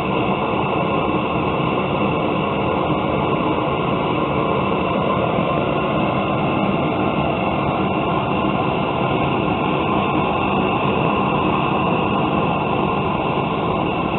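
Gas torch burner firing steadily into a coffee-can forge with a constant rushing noise, heating a knife blade toward about 1500 degrees to make the steel non-magnetic for hardening.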